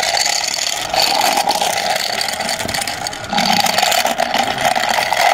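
Truck engine sound running, a steady rough drone that dips briefly about a second in and again a little after three seconds.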